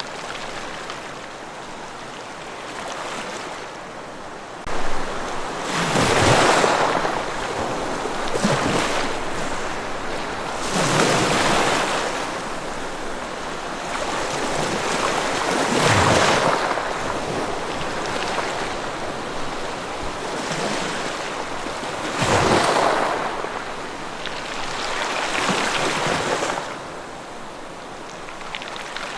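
Ocean waves breaking on a shore: five surges, one about every five seconds, with a steady wash between them.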